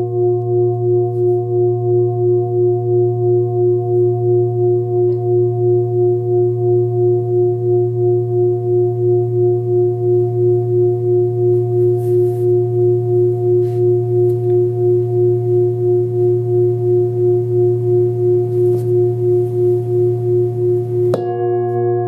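A 28 cm forged Sun Moon singing bowl, tuned to about 117 Hz and holding water, rings on in a long steady hum with a slow pulsing beat about twice a second. Near the end a hand dips into the water and the tone changes suddenly, with new higher overtones sounding.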